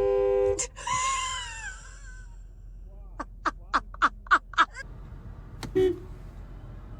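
A car horn blasts for about half a second, then a person cries out in a falling pitch. About three seconds in, six short quick sounds follow, and a brief low tone comes near the end.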